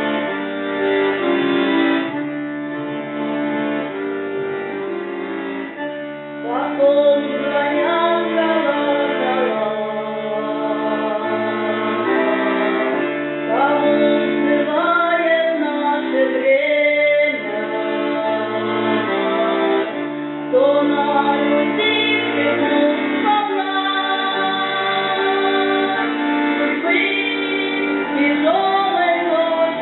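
Russian folk song performed by a women's folk choir. Sustained accompaniment chords open it, then women's voices come in about seven seconds in, singing a melody with vibrato and sliding up into notes.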